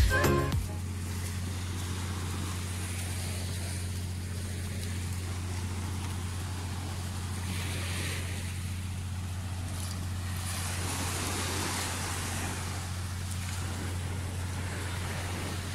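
Small waves washing onto a sandy shore, the hiss swelling twice about halfway through, over a steady low hum like a distant engine.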